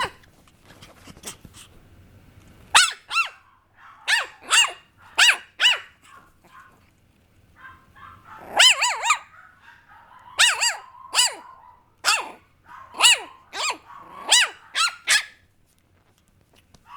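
Papillon puppy yapping: short, high-pitched barks, mostly in pairs, with a short lull in the middle.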